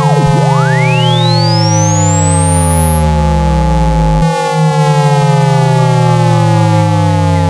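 Synthetic speaker-cleaning tones for ejecting water from a phone speaker: a pure tone sweeps down to a low pitch and back up to a very high one like a siren, over steady held tones, layers of falling tones and a low pulsing hum. The pattern breaks off and restarts about four seconds in.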